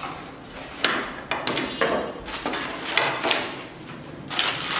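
Packaging and bagged parts of a robot kit being handled on a table: a cardboard box and white tray are opened and small plastic bags of parts set down, giving a series of irregular knocks and clatters with rustling between them.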